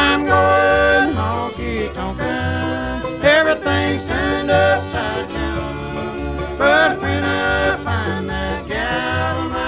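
Bluegrass band playing an instrumental break, with banjo and guitar over a bass line that alternates between two low notes.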